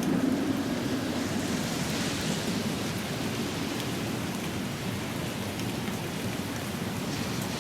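Steady rain falling on pavement, an even hiss. The low rumble of a passing vehicle fades away in the first second, and a brief swell of hiss comes about two seconds in.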